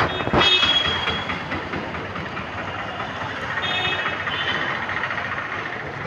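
Steady street and vehicle noise, with one sharp knock about a third of a second in.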